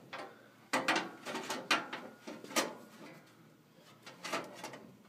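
Irregular sharp clicks and knocks from cladding parts and tools being handled during installation, several in the first few seconds and one more later.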